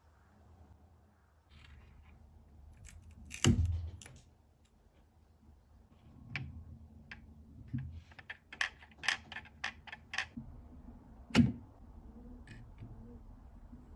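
Hard objects being handled: scattered sharp clicks and taps, a quick run of clicks in the middle, and two louder knocks, one a few seconds in and one later on.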